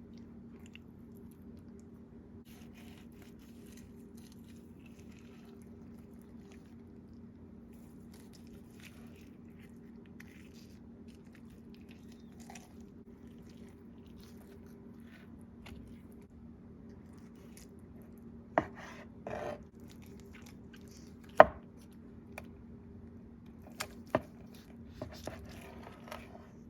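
A steady low hum with faint rustling, then a handful of sharp clicks and knocks in the last third, the loudest about two thirds of the way through.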